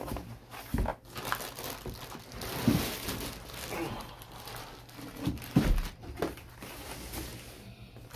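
Plastic wrapping around a heavy portable power station crinkling and rustling as it is lifted out of a cardboard box, with a few dull thumps as it is handled.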